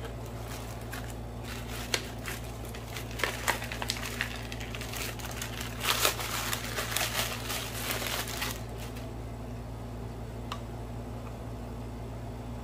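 Crinkling and rustling handling noise with scattered light clicks, busiest around the middle and stopping about two-thirds of the way through, over a steady low hum.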